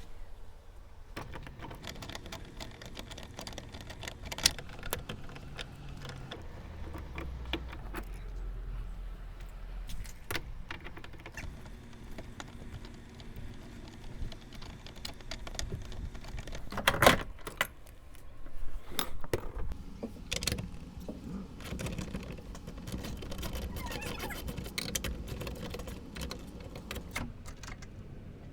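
A 10 mm ratchet clicking, and small metal parts clinking, as the bolts at the top of the tailgate struts are undone. A loud knock about seventeen seconds in.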